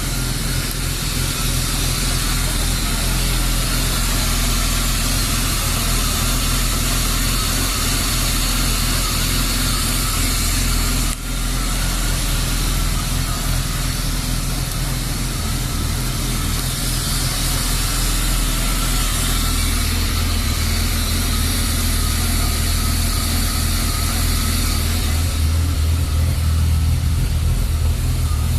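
BMW E36 325i's 2.5-litre straight-six engine idling, with a brief dip about eleven seconds in and a deeper, stronger low hum in the second half.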